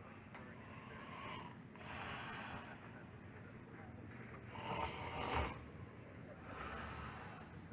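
A man snoring in his sleep: several rasping snore breaths a second or two apart, the loudest about five seconds in.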